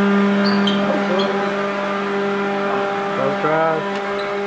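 Electric handheld leaf blowers running steadily, a constant motor hum with a whine above it, blowing air into a homemade hovercraft's skirt. Brief voices or laughter come through about a second in and again past the middle.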